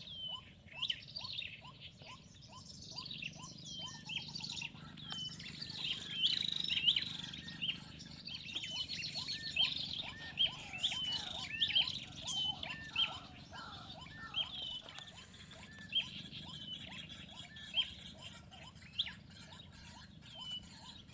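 Several birds calling. Through the first few seconds a rapid series of short chirps repeats about twice a second, over many higher, sharp calls that continue throughout. A fast trill comes about nine seconds in.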